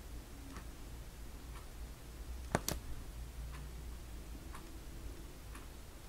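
A clock ticking faintly, about once a second, with a sharper double click about halfway through.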